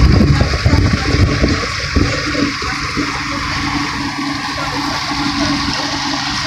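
Yamaha V6 200 outboard motor running steadily at speed as a boat planes, a constant low hum under the loud rush of water churning in the wake.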